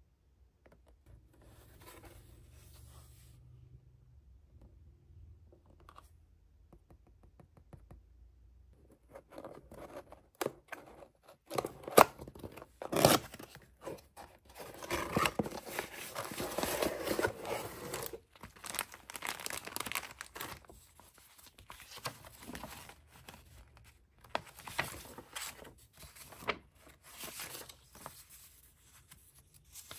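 Paper being handled, cut and torn by hand up close: irregular scratchy tearing and crinkling with sharp clicks, starting about nine seconds in after a nearly quiet start.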